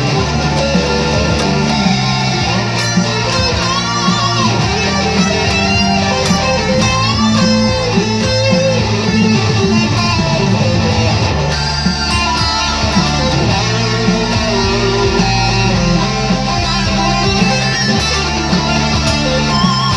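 Ibanez RG2570 electric guitar playing a lead solo over a rock backing track: fast note runs and held notes with wide vibrato.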